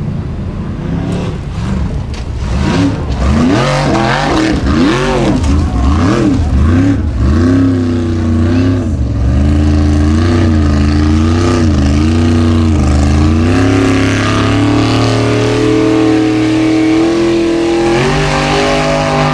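Formula Offroad unlimited-class buggy's race engine revving hard on a steep dirt hill climb. The revs hold steady briefly, then swing up and down about once a second as the throttle is worked, and are held high and rising slowly for the last several seconds.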